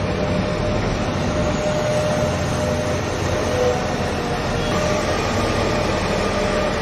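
Loud, steady machine-like rumbling noise with a low hum, starting and cutting off suddenly like an added vehicle sound effect.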